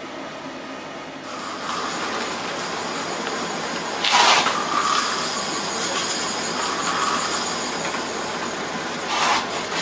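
Fishing reel's drag buzzing in two loud spurts, about four seconds in and near the end, as a hooked fish pulls line off the reel, over a steady hiss.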